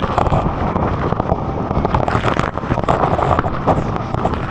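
Loud, dense rushing of the Iguazu Falls waterfall and its drenching spray, with water pelting the microphone in many small hits, together with wind buffeting.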